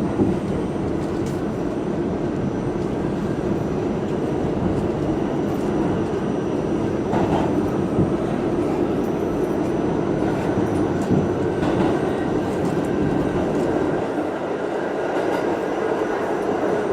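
R68A New York City subway car running at speed, heard from inside the car: a steady rumble of wheels on rail and running gear, with a few faint knocks.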